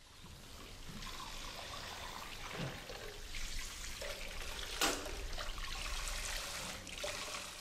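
Water from a spray tap running over a stainless steel bowl as it is washed in a sink, with a sharp metal knock about five seconds in.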